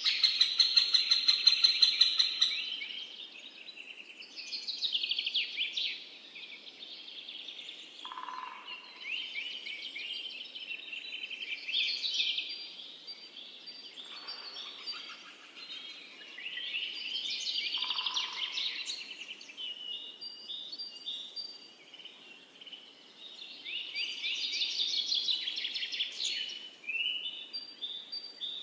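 Birds singing, with song phrases coming every few seconds. The first two seconds or so hold a louder, rapidly pulsing call.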